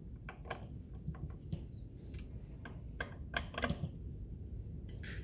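Faint, irregular small clicks and ticks of a screwdriver working the screws on a Stihl MS461 chainsaw as it is tightened back together.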